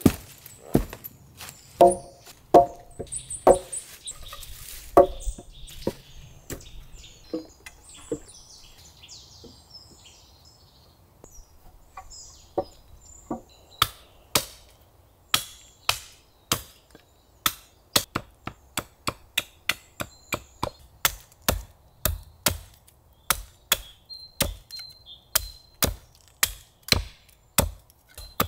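Green logs knocking together as they are laid, hollow wooden clunks, then after a short lull a hatchet chopping steadily into wood on a chopping stump, about two strokes a second, pointing the ends of wooden stakes.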